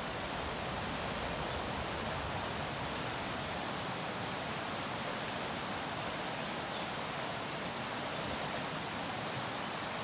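Shallow, fast-flowing river rushing over rocks and small rapids: a steady, even wash of running water.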